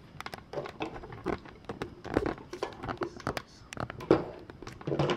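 Scattered clicks and crinkling rustles from close to the microphone, with bits of a low voice in between.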